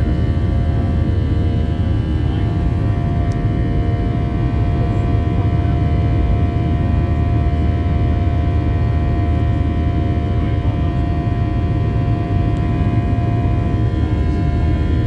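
Steady cabin noise of an airliner in flight: a loud, even rumble with several steady engine tones over it.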